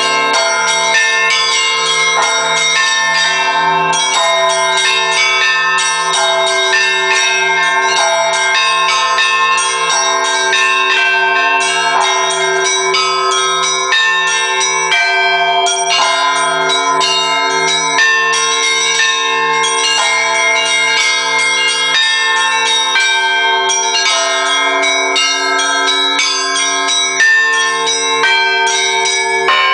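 Russian Orthodox church bells rung by a bell ringer: many bells sounding together in a continuous peal, smaller bells struck in quick patterns over a steady pulse from a lower bell.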